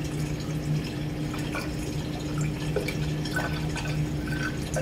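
Vinegar poured from a gallon plastic jug into a glass graduated cylinder: liquid trickling and dripping as the cylinder fills, over a steady low hum.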